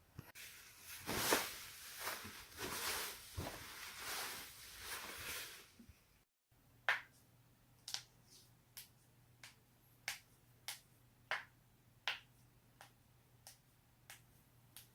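Joints being cracked: a stretch of rustling and crackling with one loud crack about a second in, then, after a brief gap, a steady run of sharp single pops, roughly one and a half a second, over a faint hum.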